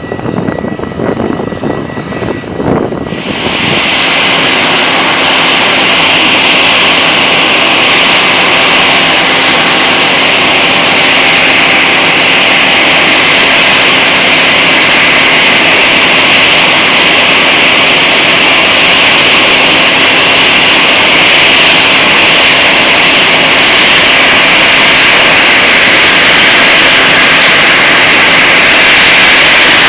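Airbus A340's four jet engines running at idle thrust close by as the airliner taxis in. There is a steady rush with a high, even whine above it. For the first three seconds there is only a fainter, uneven rumble from a distant aircraft on the runway.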